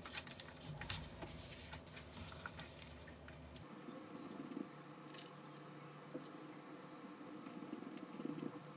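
Paper rustling and small taps as hands press open and handle the pages of a workbook, then a pen scratching on the paper as it writes. A faint low hum sits under the first few seconds and stops.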